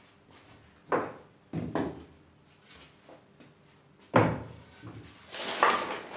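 Hard knocks and clatter of objects being handled and set down: a knock about a second in, another just after, a louder one past four seconds, then a short scraping rattle near the end.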